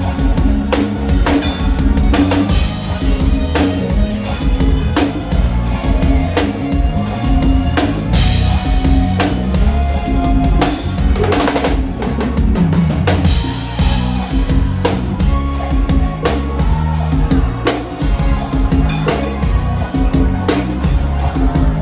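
Live forró band playing through a stage PA, led by a drum kit with kick drum, snare strokes and cymbals, and a keyboard playing along.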